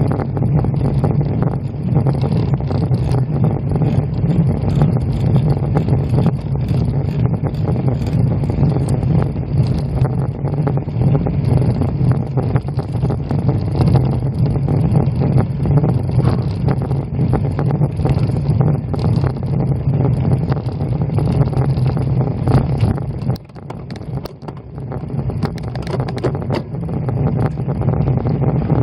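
Wind rumbling on the microphone of a bicycle-mounted camera as the road bike climbs slowly, with faint rattles throughout. The rumble drops briefly about four-fifths of the way through.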